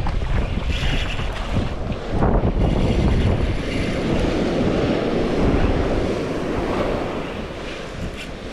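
Ocean surf washing up a sandy beach in swells, the largest surging in about two seconds in, with wind rumbling on the microphone.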